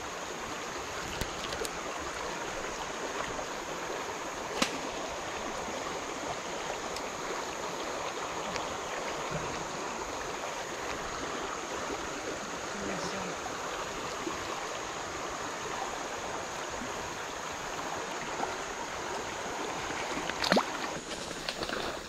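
Creek water rushing steadily over a shallow, rippling stretch. A couple of brief clicks stand out, one about five seconds in and one near the end.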